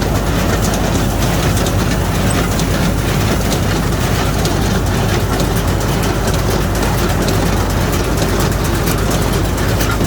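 Straw baler running steadily: a constant engine hum under a dense, fast clatter of the baling machinery.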